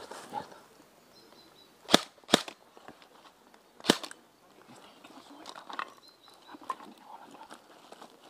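Airsoft rifle firing three single shots close by: two about a third of a second apart, then one more about a second and a half later. Softer clicks and rustles follow.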